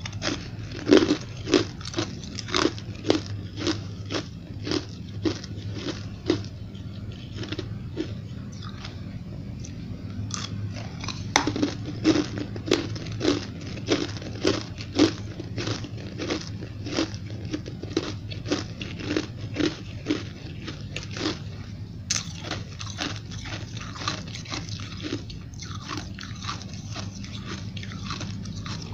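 Chewing a mouthful of hard white ice chunks: a long run of sharp, crisp crunches, about two a second, that now and then eases off a little.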